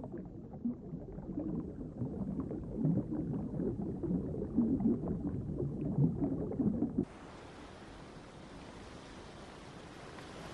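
Muffled underwater bubbling and gurgling as a box eel trap is weighted down with rocks on the reef. About seven seconds in it cuts abruptly to a quieter, steady hiss of surf and sea.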